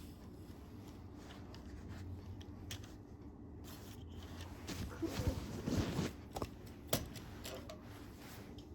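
Handling sounds from a tripod and its packaging: scattered light clicks and rustling, with a busier stretch of rustles and sharp clicks a little past the middle.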